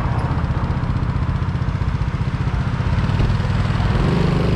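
Honda Innova 125's small single-cylinder four-stroke engine idling with a fast, even pulse. A higher engine note comes in about four seconds in.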